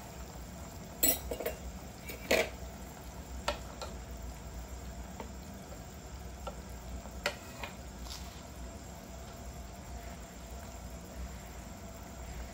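Metal utensils, a fork and then a ladle, tapping and clinking against the side of a pot of boiling chicken soup. There are several sharp clinks in the first few seconds, the loudest about one and two seconds in, and a few more around seven to eight seconds in. Under them run the broth's steady bubbling and a low hum.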